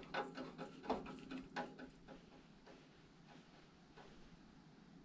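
Several light clicks and rattles in the first two seconds as wires and small parts are handled at a new furnace transformer, then only faint room tone.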